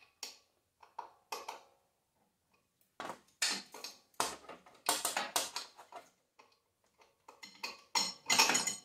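Hand ratchet with a 7/16 socket clicking in short bursts of rapid clicks as engine mounting bolts are run in and snugged, with metal tool clinks; the clicking is busiest near the end.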